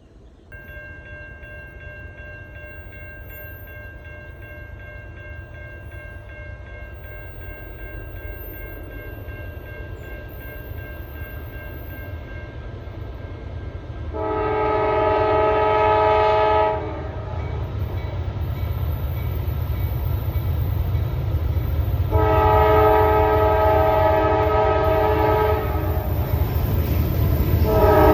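CSX freight train's diesel locomotive horn sounding two long blasts, with a third starting at the end, as the train approaches with a low engine rumble that grows louder. A fainter steady chord of tones comes before the horn blasts.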